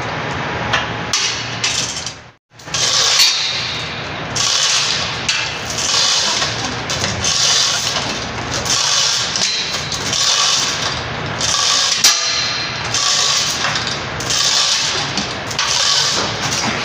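Manual chain hoist being worked hand over hand: its chains rattle and clack in regular bursts about once a second, after a brief gap about two seconds in.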